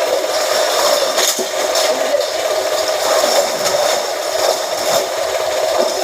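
Press machine for straightening scrap iron running steadily with a constant mechanical hum, with a few brief metallic knocks.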